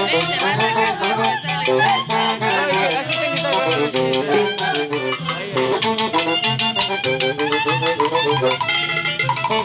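Live dance band playing: saxophones and clarinet carry the tune over timbales, a cymbal and a metal scraper keeping a quick, steady beat.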